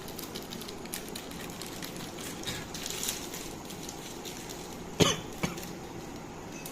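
Two short coughs about half a second apart, the first the louder, over a steady background hiss.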